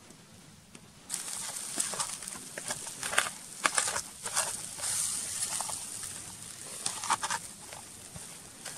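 A wooden spatula stirring and scraping an egg and bread mixture around an aluminium camping pot. It starts about a second in as an irregular run of scrapes and knocks against the metal.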